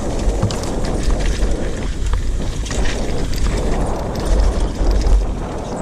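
Downhill mountain bike running fast down a dirt trail: wind buffeting the microphone in a low rumble, tyres on dirt, and repeated short clicks and knocks from the bike over the bumps.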